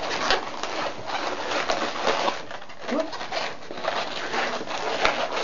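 Inflated latex twisting balloons rubbing and squeaking against each other as a long balloon is twisted and wrapped around a balloon sculpture, with rubbing scrapes and short squeaks throughout, a few pitched ones about three seconds in.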